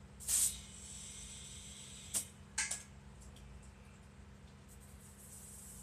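A short, sudden burst of hissing air from a homemade PVC pneumatic antenna launcher, trailing off over about a second and a half, followed by two sharp clicks from handling it. The launcher had not been charged with air.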